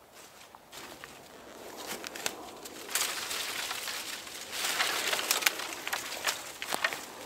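Dry brushwood and leaf litter rustling and crackling as long cut branches are pulled from a pile of felled wood, with sharp cracks of twigs. It sets in about three seconds in after a quiet start and is loudest just past the middle.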